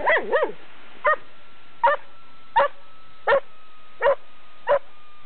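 English springer spaniel barking in play: a quick run of three barks at the start, then single barks about every three-quarters of a second.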